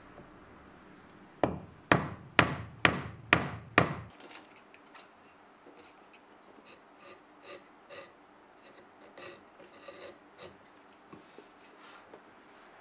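Hammer striking a chisel six times, about two blows a second, chopping into the blade slot of a wooden Japanese plane block (kanna dai). Then quieter, irregular scraping and small cuts as a chisel pares the wood of the slot by hand.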